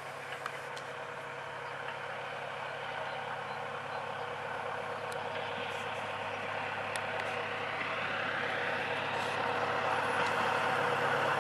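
SU42 diesel locomotive's engine working hard as it approaches with a passenger train, a steady engine drone that grows steadily louder.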